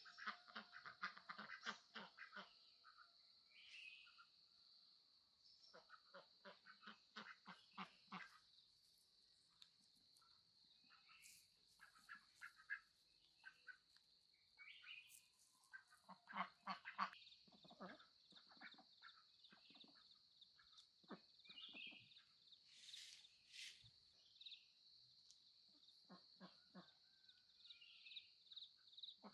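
Ducks quacking faintly in quick runs of calls every several seconds, over a steady high-pitched hum.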